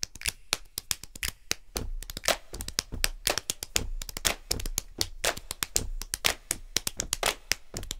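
Rapid bare-hand slaps played bongo-style on bald heads, a fast drum solo of several sharp slaps a second in an uneven rhythm.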